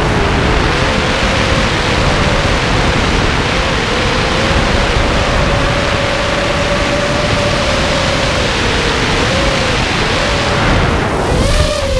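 Wind rushing over the onboard camera of a ZMR-frame FPV quadcopter on a 3S battery. The motors whine through it, the pitch rising and falling with the throttle. Near the end the wind rush drops and the whine wobbles quickly.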